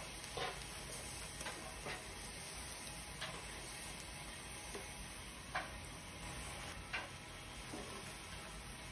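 Whole tuna grilling over charcoal with a faint, steady sizzle, broken by about eight light clicks of metal tongs and a spatula knocking against the grill grate as the fish are handled.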